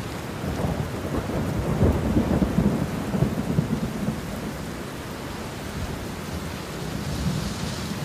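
Steady heavy rain with a low, rolling rumble of thunder, strongest in the first half.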